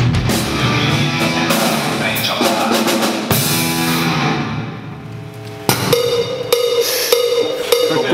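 Heavy rock on distorted electric guitar, electric bass and drum kit. The music drops to its lowest about five seconds in, then drum strikes and a held note come back near six seconds.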